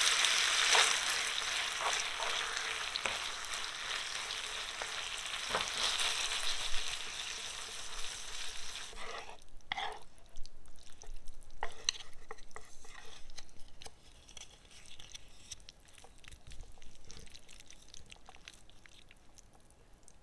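Olive oil and pasta water sizzling in a nonstick frying pan while spaghetti is stirred and tossed with a wooden spoon. The sizzle is strong at first and dies down about nine seconds in, leaving soft, irregular clicks and scrapes of the spoon and noodles as the liquid reduces into a creamy sauce.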